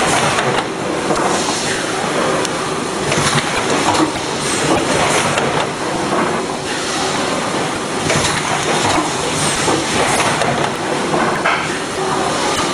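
Automatic chocolate snack-pack filling and packing machine running, a steady mechanical clatter with frequent clicks.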